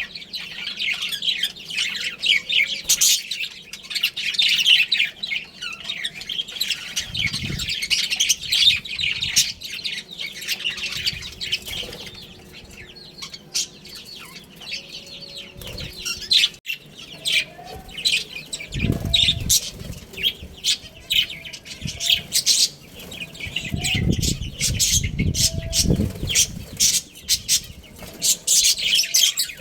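A group of budgerigars chirping and chattering in quick, busy runs of high notes, with a few short, low fluttering bursts from about a third of the way in and again near the end.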